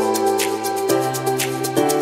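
Background music: held chords that change about once a second over a fast, steady ticking beat.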